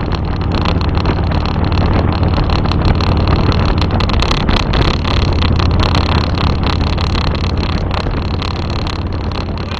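Harley-Davidson motorcycle running steadily at highway speed with heavy wind noise, under constant rapid rattling from a mounted GoPro camera banging against the windshield.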